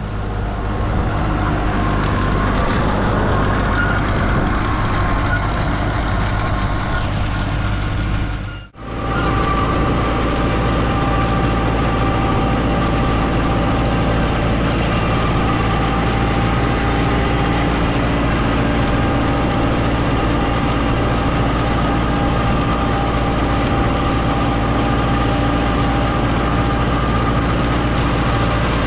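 Tractor engine running steadily at a constant speed; the sound drops out briefly about nine seconds in, then resumes unchanged.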